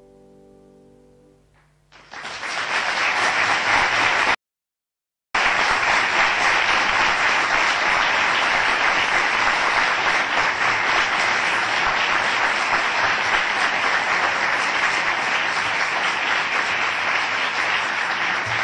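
The last chord of a grand piano fades away, and about two seconds in an audience breaks into loud, steady applause. The applause is cut by a second-long gap of silence about four seconds in, then carries on.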